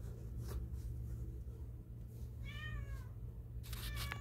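Domestic cat meowing twice, two short falling calls a little over a second apart, over a steady low hum.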